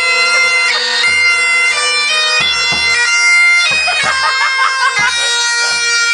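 Great Highland bagpipes playing a tune over their steady drones, with a bass drum beating time about twice a second.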